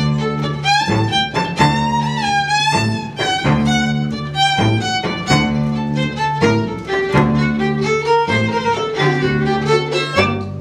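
Small string ensemble of violin, viola, cello and double bass playing a lively tune. A violin melody with vibrato rides over a low accompaniment of short chords repeated in a steady rhythm.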